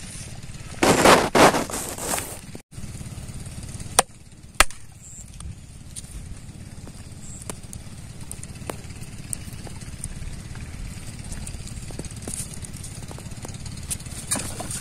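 Scraping and crunching of hands working clods of dry mud and soil, loudest about a second in, with two sharp knocks around four seconds, over a steady low background rumble.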